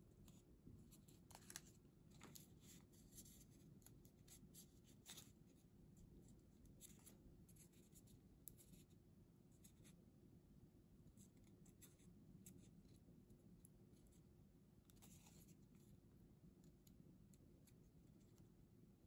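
Faint rustling and creasing of origami paper being folded and pinched by fingers: many short scratchy crackles, busiest in the first half and again briefly later on, over a low steady hum.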